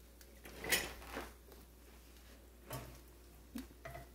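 Bread slices frying in butter and oil with a faint sizzle, broken by a few short kitchen clicks and knocks, the sharpest just under a second in.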